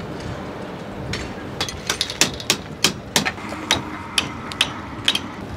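About a dozen sharp metal clicks and taps at an uneven pace, starting about a second in: a hand tool working a stainless steel rigging fitting at a sailboat's bow.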